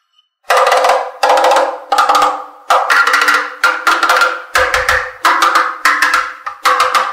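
Percussive music: a knock repeats about once every 0.7 seconds, each one ringing briefly and dying away.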